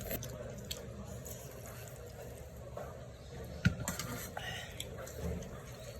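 Wet eating sounds from cold chicken noodle soup (chogye guksu): noodles and chilled broth slurped and chewed, with scattered soft clicks. A single sharp knock about three and a half seconds in is the loudest sound.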